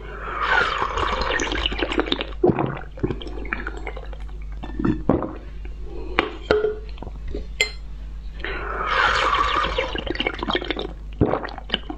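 Wet slurping as pink dessert is sucked out of plastic test tubes: two long slurps, one at the start and one from about eight and a half seconds in. Between them come sharp plastic clicks and taps as an emptied tube is set back in the wooden rack.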